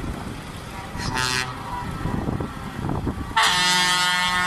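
Trucks driving past with traffic noise, a short truck horn toot about a second in, and a long steady horn blast starting about three and a half seconds in.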